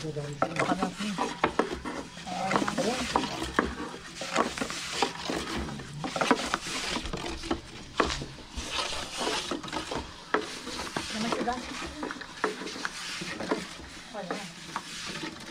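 Long thin wooden rolling pins rolling over floured wooden boards as flatbread dough is rolled paper-thin: a busy patter of clacks and knocks from the pins striking the boards, mixed with dry rubbing and scraping.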